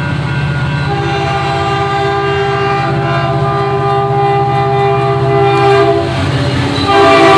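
Caltrain diesel locomotive horn sounding a long blast of about five seconds starting about a second in, then a second blast near the end, over the steady drone of the diesel engine.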